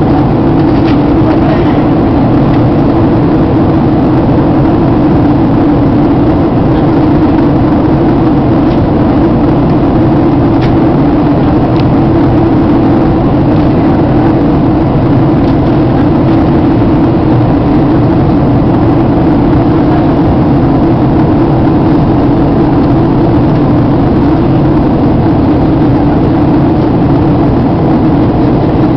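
Cabin noise inside a Boeing 737-800 during descent: the steady, even roar of its CFM56 jet engines and the airflow over the fuselage, with a low drone and no change in level.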